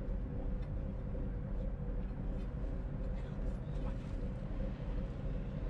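Ship's inboard engine running steadily, a low even drone, with a few faint clicks over it.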